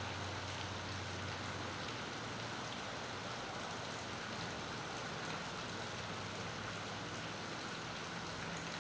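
Steady rain falling on a marina at night: an even, unbroken hiss, with a faint steady low hum underneath.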